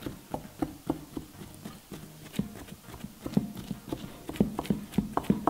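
A wooden skewer jabbed again and again into a soft baked sponge cake, making a quick, irregular run of light taps, several a second.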